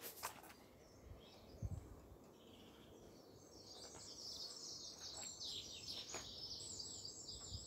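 Faint birdsong: a songbird starts a fast run of short, high chirping notes about three and a half seconds in and keeps going. A faint knock comes a little before that.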